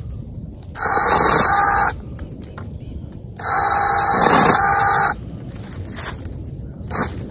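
NaTiddy 21 V brushless mini battery chainsaw run in two short bursts, about a second and then a second and a half long, cutting through small limbs of a young tree.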